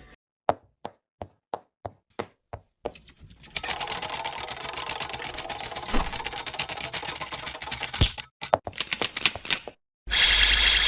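Sharp mechanical clicks, about three a second at first, then a dense run of rapid clicking like fast typing for about five seconds, a few more scattered clicks, and a loud burst of noise near the end.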